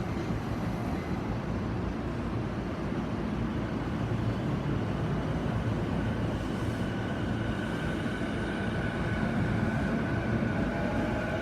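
E233 series 6000 electric multiple unit pulling away from a station, with a steady rolling rumble. About halfway through, the whine of its inverter-driven traction motors joins in and rises in pitch toward the end as the train accelerates.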